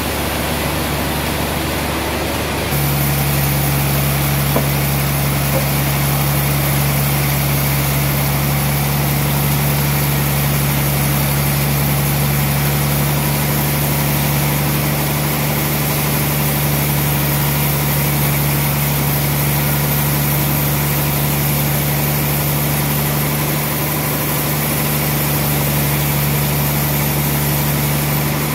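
Band sawmill running steadily without cutting: a constant machine hum with a strong low drone. It steps up a little louder about three seconds in.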